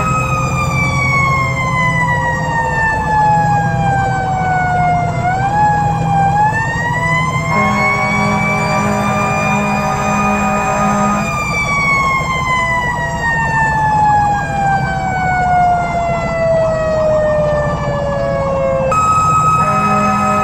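Fire engine's Federal Q2B mechanical siren heard from inside the cab: its wail falls slowly, is wound back up about a third of the way through to a high held pitch, then coasts down again for several seconds. Near the end a steady high tone cuts in abruptly, and a lower pulsing tone runs underneath much of it.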